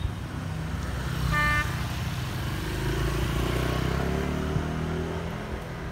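A motorbike riding up and passing, its small engine running with a steady low note, and a short horn toot about a second and a half in.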